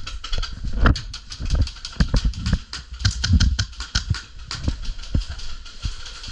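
A dense, irregular run of sharp clicks and low thumps, several a second.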